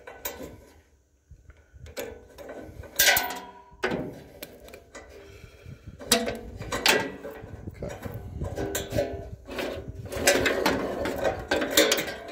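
Steel roller chain of a snowblower's auger drive clinking and rattling against its sprocket as the master link is taken apart and the chain is pulled off by hand. Irregular metal clicks and knocks, busiest in the last couple of seconds.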